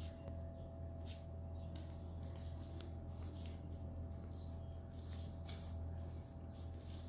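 Scissors snipping through folded black paper: a run of short, irregular cuts, over a steady low hum.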